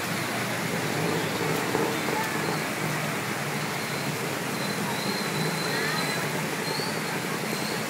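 Steady rushing noise of floodwater running through a street, mixed with vehicles driving through the water.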